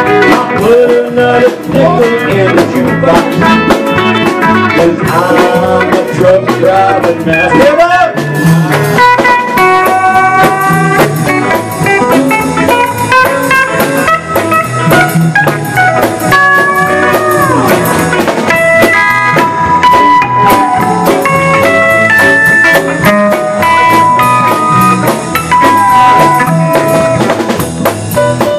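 Live country band playing an instrumental break. A pedal steel guitar plays sustained, sliding notes over electric bass and drums.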